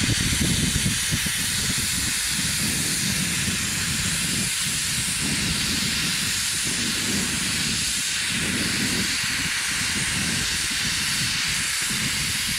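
Steady, loud hiss of steam escaping from LMS Hughes 'Crab' 2-6-0 steam locomotive 13065, with its cylinder drain cocks open and blowing.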